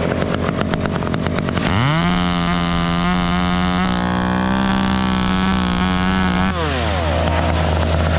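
Chainsaw engine revved up to full throttle about two seconds in, held at a steady high pitch for about five seconds, then let back down. A steady lower engine drone runs underneath.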